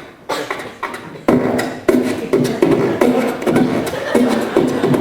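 A person making rhythmic vocal sound effects into a microphone, beatbox-style, about three pulses a second, becoming louder about a second in.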